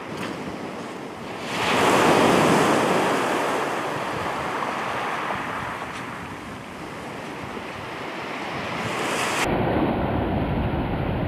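Sea surf breaking and washing on the shore, with one wave swelling loudly about two seconds in and slowly easing off. Near the end a low rumble of wind buffeting the microphone comes in.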